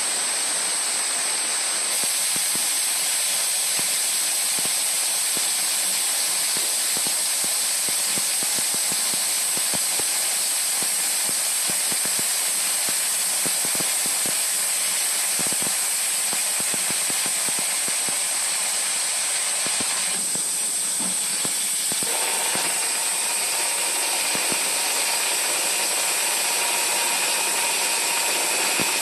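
Star SR20 sliding-head CNC lathe cutting a brass banjo fitting dry: a steady hiss with a constant high whine and scattered ticks of brass chips. A little over two-thirds of the way in, a steadier mid-pitched whine joins as the cut changes.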